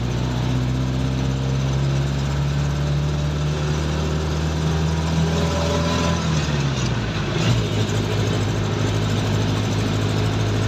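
Passenger jeepney's diesel engine running, heard from inside the passenger cabin: a steady drone whose pitch drops about two-thirds of the way through.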